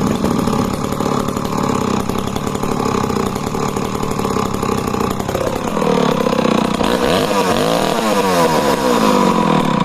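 Two vintage 110 cc two-stroke chainsaws, a Jonsered XF and a Danarm DDA110, running together to warm up, very loud. From about halfway the engine pitches rise and fall against each other as the throttles are blipped.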